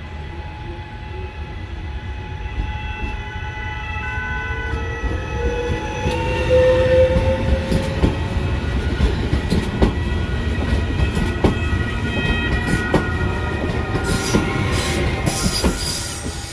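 Train running past a station platform: a steady rumble with whining tones, one of which rises in pitch about four to seven seconds in. From about six seconds in there are wheel clacks over the rail joints every second or two, and a burst of high-pitched screech and hiss near the end.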